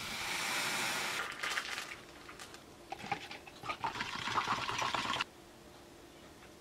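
A steady hiss of milk heating in a saucepan on a gas hob for about the first second. It is followed by quick, irregular clicks and scrapes of a utensil whisking a custard mixture in a plastic jug, which stop suddenly about five seconds in.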